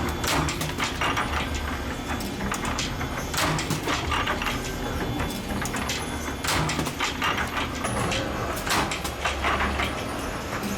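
Spring-making machine running: a low hum with frequent irregular clicks and knocks.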